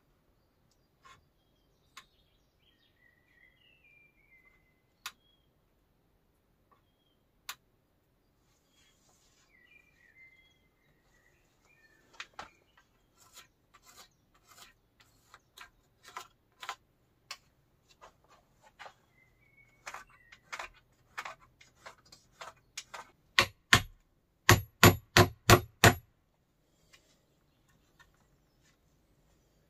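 Birds chirping in short falling phrases, with scattered light knocks and clicks that grow busier. About two-thirds of the way through come six quick, loud strikes with a metallic ring.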